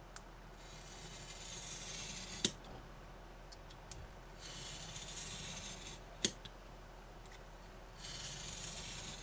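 Craft knife blade drawn along a steel rule through 2 mm card in three passes: each a scraping hiss about two seconds long that ends in a sharp click.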